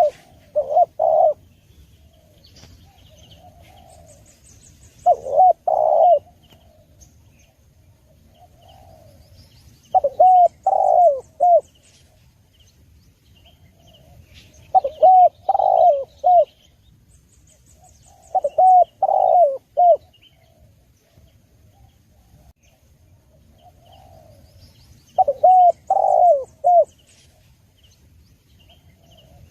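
Spotted dove cooing: a phrase of three or four notes repeated six times, roughly every four to five seconds, with faint chirping of small birds in the background.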